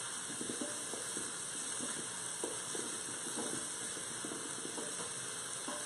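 Fingerling potatoes browning in hot olive oil with shallots and herbs, sizzling steadily, with scattered small clicks and pops.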